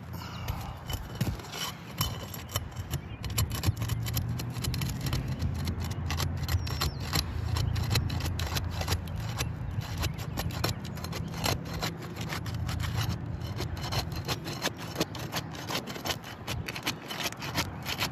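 Scraping and prying at sealed asphalt shingles: a continuous run of rasping scrapes and sharp clicks as the sealant bond is broken and the shingle corners tear. Underneath is a low steady rumble.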